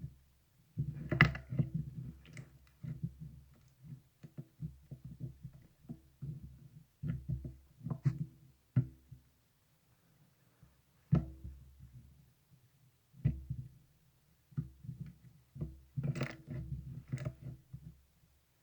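Hands squishing and pressing marbled slime, making irregular clusters of small sticky clicks and pops over soft low thuds, with short pauses between handfuls.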